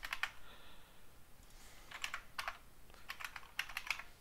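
Typing on a computer keyboard: quick runs of key clicks, with a pause of over a second near the start before several more short runs.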